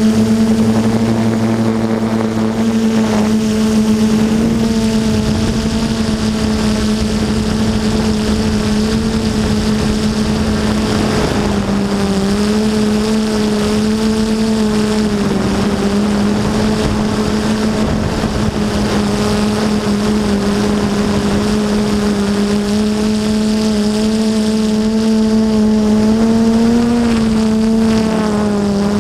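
Quadcopter's electric motors and propellers whining at a steady pitch; the pitch steps down slightly about a third of the way through and glides down near the end.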